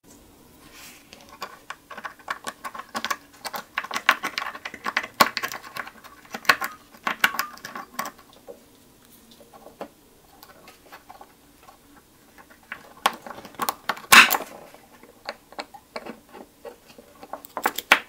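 Picking a clear acrylic practice padlock with a Swiss Army knife's plastic toothpick and a metal tension wrench: quick, irregular clicks and scrapes from the pick and pins in the keyway, with a quieter stretch in the middle and one louder click about fourteen seconds in.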